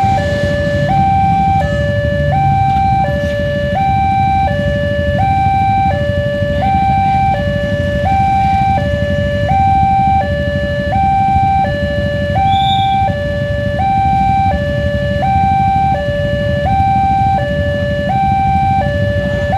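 Railway level-crossing warning alarm sounding its electronic two-tone signal, alternating steadily between a higher and a lower tone, each held for under a second. It warns that a train is approaching. Road traffic rumbles beneath it.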